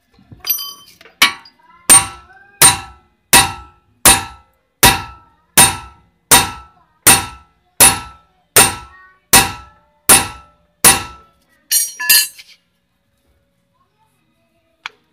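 A hammer strikes the front steering knuckle of a 1999 Hyundai Starex about fourteen times in a steady rhythm, a little faster than once a second, and each blow rings metallically. The hammering drives the lower ball joint's tapered stud out of the knuckle. A couple of lighter clinks follow the last blow.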